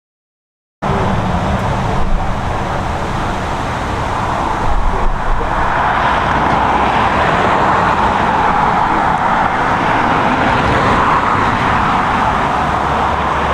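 Gusty wind buffeting an outdoor microphone, an irregular low rumble under a steady rushing roar. The sound cuts in suddenly about a second in.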